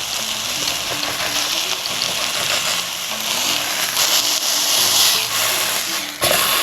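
Beef fillet searing in hot olive oil in a frying pan: a steady loud sizzle with scattered pops and spatters. The sizzle drops away sharply for a moment near the end.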